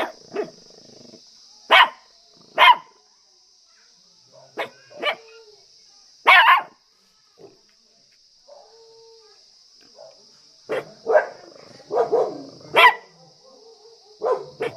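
Small Shih Tzu dog barking in irregular bursts of short, sharp barks, with a pause of a few seconds midway before a quicker run of barks.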